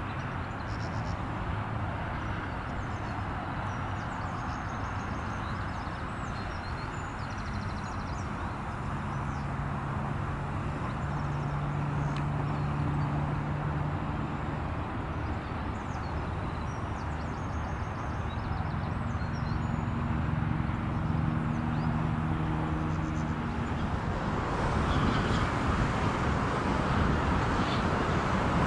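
Steady background rumble of distant road traffic, with an engine hum swelling in over the middle and fading near the end, and faint high chirps of small birds. Near the end the noise turns broader and louder, like wind on the microphone.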